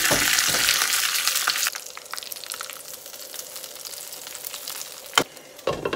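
Tadka of mustard seeds, dried red chillies and curry leaves in hot coconut oil sizzling loudly as it is tipped into a pan of chickpea curry. The sizzle drops off sharply under two seconds in, leaving a quieter hiss while it is stirred in, with two sharp knocks near the end.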